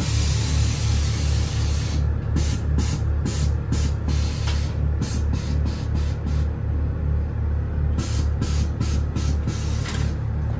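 Air suspension letting air out of the bags as the car lowers. A continuous hiss for about two seconds, then a quick series of short hisses, about three a second, as the valves are pulsed, with a break of a second or so in the middle. A steady low hum runs underneath.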